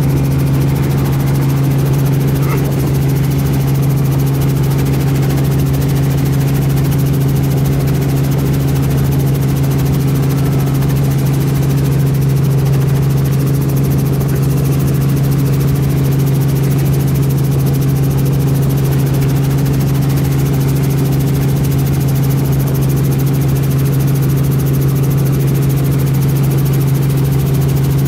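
Helicopter's engine and rotor heard from inside the cabin during lift-off and climb-out: a steady drone with a strong low hum that holds the same pitch and level throughout.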